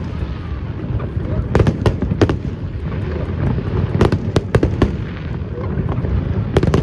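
Fireworks display: sharp bangs in quick clusters of two to four, about one and a half seconds in, around four seconds in, and again near the end, over a continuous low rumble.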